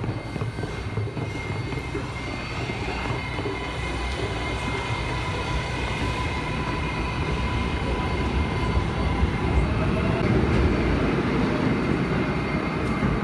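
7 line subway train (R188 cars) standing in the station: a steady electric whine with two high tones over a low rumble that grows louder in the second half.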